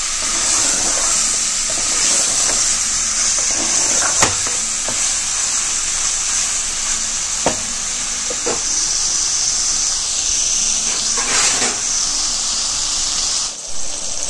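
Marinated chicken sizzling as it fries in hot oil in a metal pressure-cooker pot, a steady hiss. A few sharp knocks of a wooden spatula against the pot break in while it is stirred.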